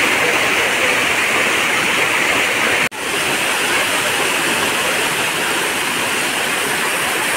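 Waterfall pouring over rock: a loud, steady rush of falling water. It cuts out for an instant about three seconds in, then comes straight back.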